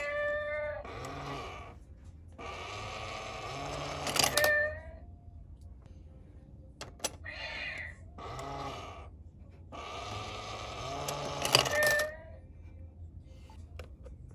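Novelty coin bank playing its recorded sound effect, a short sequence of pitched, gliding calls heard twice over, the repeat starting about seven seconds in.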